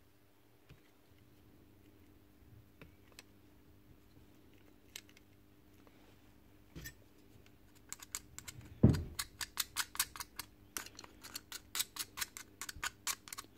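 Scattered small clicks of handling, then from about eight seconds in a quick run of scratching clicks, several a second, as packed hair and dung is scraped out of a cattle clipper head with a screwdriver, with a single dull knock as it starts.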